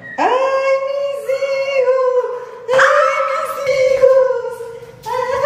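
High, wordless singing voice holding long notes: one note of about two seconds, then after a short break a longer one that slowly fades, and another beginning near the end.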